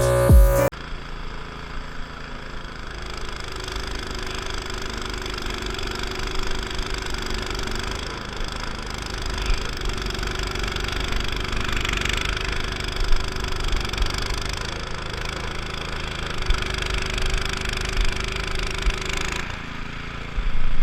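Snowblower's small gasoline engine running steadily, a continuous drone with rapid low thumping.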